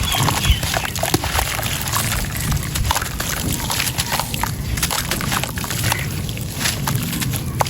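Gritty sand stones crumbling into a bowl of water: wet sloshing with many small crackling clicks throughout.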